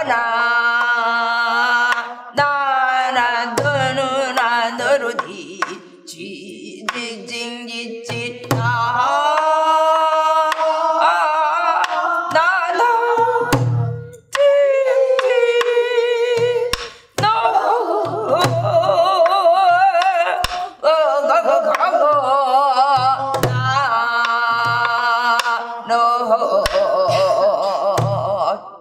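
A woman sings Korean gueum, a wordless pansori-style vocal melody with wide, wavering vibrato, accompanying herself on a buk barrel drum. Low drum thuds fall every second or two, with sharp clicks of the drumstick between them.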